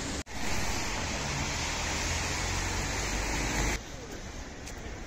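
Steady rushing noise with a deep rumble, wind and rain buffeting a phone's microphone outdoors. About four seconds in it cuts off sharply to a quieter hiss of wet street traffic.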